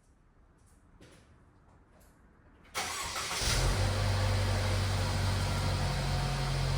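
A Mercedes convertible's engine being started: a sudden burst of cranking about three seconds in, after which the engine catches and settles into a steady idle.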